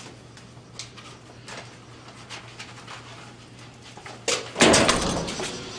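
A few faint clicks, then a loud door bang about four seconds in, a sharp knock followed by a heavier thud and rattle that dies away over about a second.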